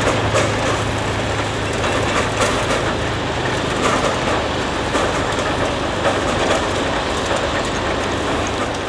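A 600 mm gauge Maffei 0-6-0T steam tank locomotive running with a train of wagons: a steady rumbling noise with scattered clanks and clicks from the wagons and track.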